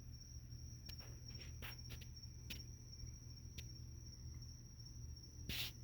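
Crickets chirring in a steady high-pitched drone, with a handful of sharp clicks scattered through it, the strongest near the end.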